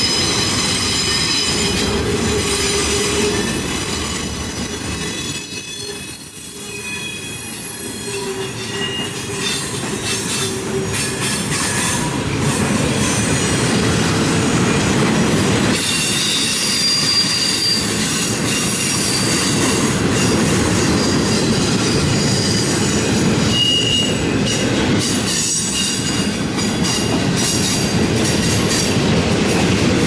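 Freight train of intermodal cars carrying trailers and containers rolling past on a curve: steady rumble and clatter of wheels on rail, with thin high-pitched wheel squeal over it. The noise drops briefly about six seconds in, then builds back up.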